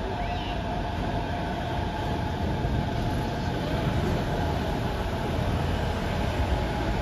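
Suspended monorail car passing overhead along its track beam: a steady rumble with a faint whine.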